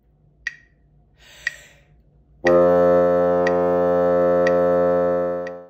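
A metronome clicks about once a second, a breath is drawn in, and then a bassoon holds one low note steadily for about three seconds before stopping.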